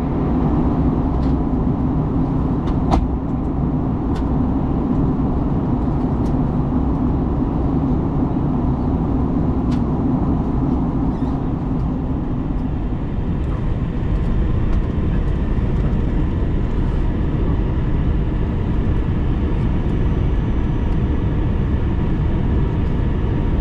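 Airliner cabin noise aboard an Airbus A321: a steady rush of engine and airflow noise with a few light clicks. A low hum within it fades away about halfway through.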